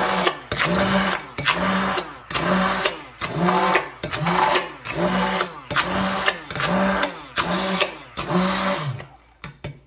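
Handheld immersion blender running in a bowl of thick, emulsified homemade mayonnaise. Its motor pitch and loudness rise and fall in an even rhythm, about three times every two seconds, and it stops near the end.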